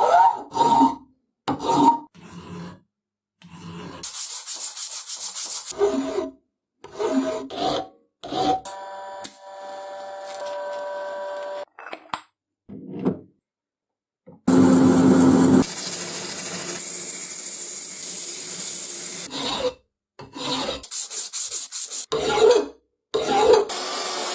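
Metalworking on an old steel leg vise, cut together from short takes: scraping and rasping strokes, a machine running with a steady tone for a few seconds, and about five seconds of loud hissing noise from around the middle.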